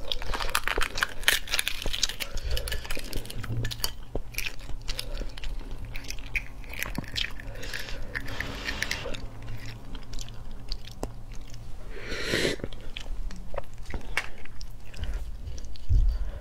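Eggshell being cracked and picked off a cooked egg by fingers, close to the microphone: a long run of small crisp clicks and crackles, thickest in the first few seconds.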